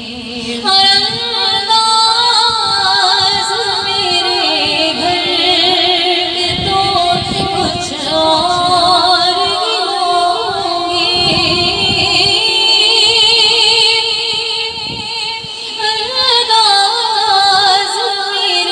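A woman singing an Urdu naat into a microphone, drawing out long, wavering notes in a melismatic passage, amplified with an echo effect.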